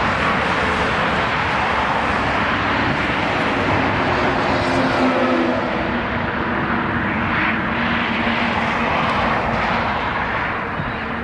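Jet engine noise of a Boeing 777-200ER on its landing, a loud steady rushing roar with a faint low hum in it, easing slightly near the end.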